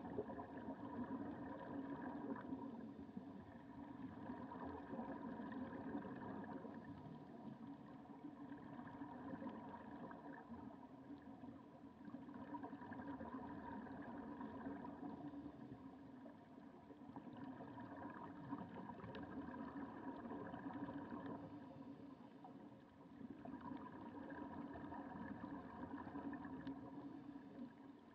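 Muffled underwater sound through a camera's waterproof housing: a steady motor-like hum that swells and fades about every five seconds.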